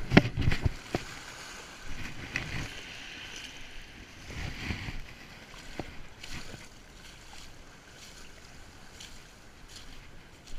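Inflatable kayak's hull bumping and scraping over wet shingle in the shallows, with water splashing around it. There is a cluster of loud knocks in the first second, then softer scraping that swells twice more.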